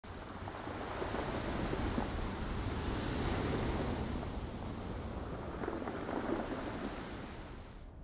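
Ocean surf: waves breaking and washing up a beach, swelling and easing, fading away near the end.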